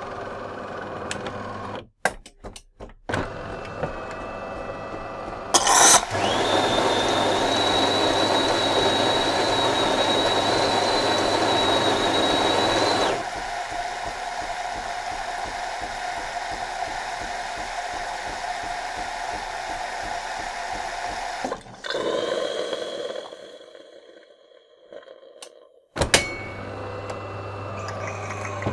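DeLonghi ESAM 4500 bean-to-cup coffee machine frothing milk for a cappuccino. A steady pump hum and clicks give way, about six seconds in, to a loud steam hiss with a high whistle through the milk frother. About seven seconds later it drops to a softer hiss while milk runs into the cup, and it fades away, followed by a click and the pump hum again near the end.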